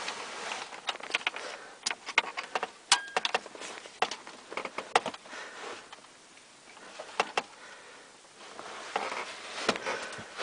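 Scattered sharp clicks and rustling from handling, going quieter for a couple of seconds just after the middle; the bells are not ringing.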